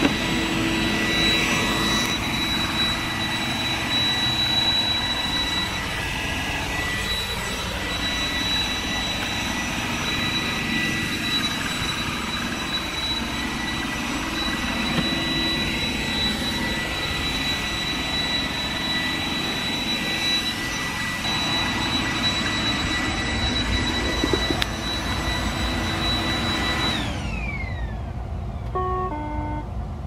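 iRobot Roomba 980 vacuuming carpet: its vacuum fan's steady high whine over brush and drive noise. A few seconds before the end the whine glides down as the motor spins down, and a short run of beeps follows as the robot stops on its Error 2 'clear the debris extractors' fault although no debris is caught.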